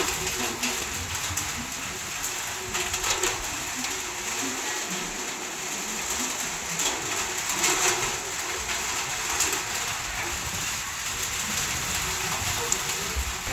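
Heavy rain falling steadily, a dense hiss, with sharper taps of drops striking something close by.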